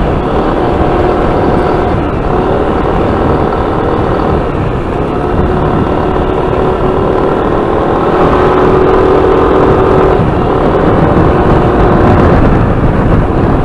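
Yamaha NMAX 155 scooter engine running steadily while ridden, with low wind rumble on the microphone.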